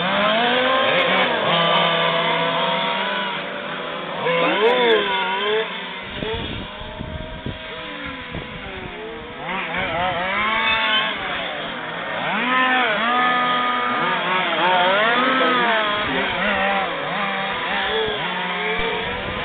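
Several 1:5 scale RC racing trucks' small two-stroke petrol engines buzzing around the track, their pitch repeatedly rising and falling as they accelerate out of corners, back off and pass by.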